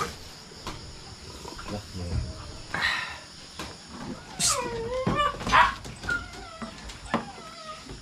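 Dog whining and yelping: a few short calls, the loudest about halfway through, sliding down in pitch, followed by a fainter drawn-out whimper.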